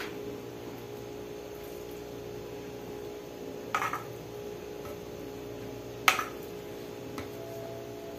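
A spoon knocking against a pot as a moist corn filling is scooped out: a clear knock about four seconds in and a louder one about two seconds later, with a couple of fainter ticks. A steady low hum runs underneath.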